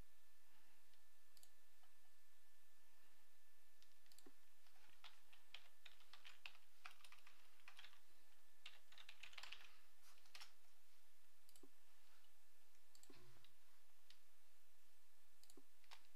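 Computer keyboard typing, a quick run of keystrokes about five to ten seconds in, as a password is entered. Scattered single clicks before and after.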